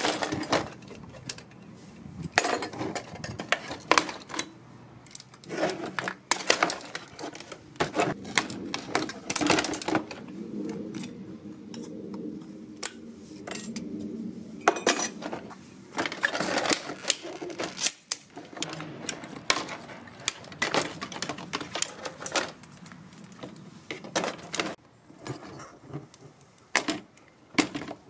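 Pliers and side cutters working on old TV circuit boards: irregular clicks, snips and snaps, with boards and parts knocking and rattling in a plastic tub.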